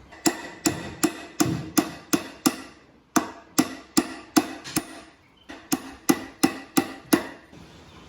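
Hammer blows in three quick runs, seven, then five, then five, about three strikes a second, each with a short ring, as a part of an antique grape press is worked.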